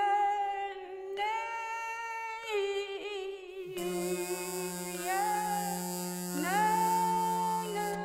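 Improvised wordless singing and humming: long held notes that scoop and slide between pitches, with two lines sounding at once, one low and one higher. About four seconds in, a low steady drone with a hiss comes in underneath and holds until near the end.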